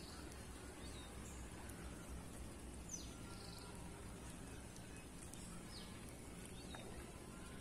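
Quiet outdoor ambience: a steady low hiss with a few faint, short, high bird chirps scattered through it.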